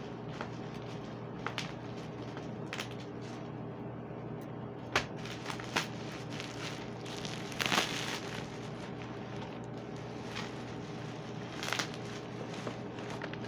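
Plastic bubble wrap being handled and pulled open: scattered crinkles and crackles, with a louder rustling burst about eight seconds in.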